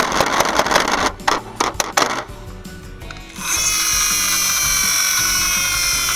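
Miniature dust suppression truck's mechanism being worked: rough ratcheting clicks for about two seconds, then a steady high whirring that starts about three and a half seconds in and lasts about three seconds, over background music.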